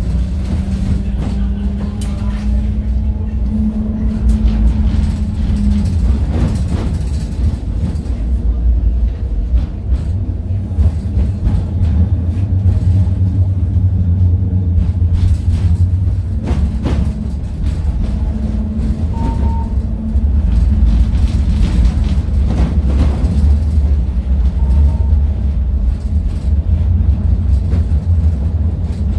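GVB Amsterdam tram 840 running along street track, heard from inside the passenger saloon: a steady low rumble of wheels and running gear with a motor hum that comes and goes, and a few sharp knocks. Two short high beeps sound later on.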